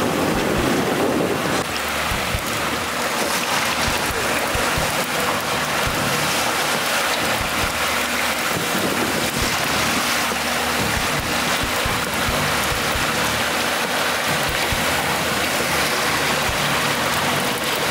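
Steady rush of wind on the microphone and sea water washing past an offshore fishing boat, with irregular low wind buffeting.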